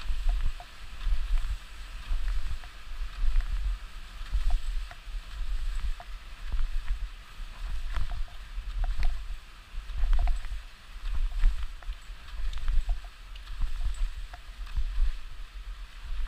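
Skis hissing and scraping over wet, slushy spring snow on a descent, with wind buffeting the microphone as a low rumble. The sound swells and falls about once a second, with small clicks of the edges catching.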